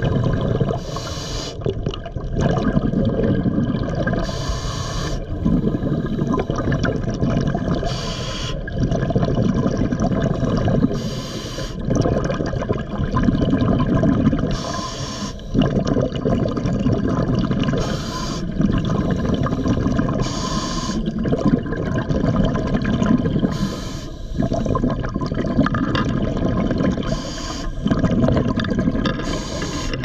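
Scuba regulator breathing, close to the camera: a short hissing inhalation about every three seconds, each followed by a low bubbling rush of exhaled air, about ten breaths in all.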